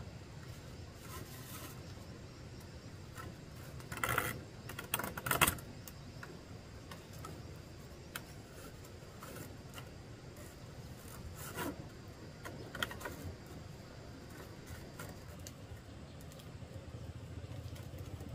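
Short bursts of scraping and clattering, loudest in a cluster about four to five and a half seconds in, with two shorter scrapes later, over a low steady background.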